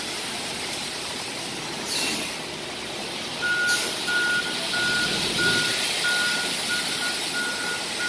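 Concrete mixer truck's engine running steadily, with two short hisses of air about two and three and a half seconds in, then its reversing alarm beeping evenly, about three beeps every two seconds.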